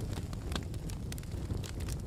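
Campfire crackling: burning wood giving off sharp, irregular pops and snaps, several in two seconds, over a low steady rumble of the flames.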